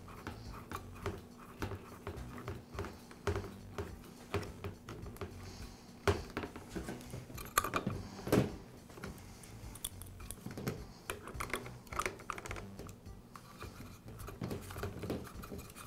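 Small clicks, taps and rattles of plastic and metal parts being handled as a flexible drive cable is threaded onto a string trimmer's spool housing shaft and tightened with a wrench, with a few sharper knocks about six to eight seconds in.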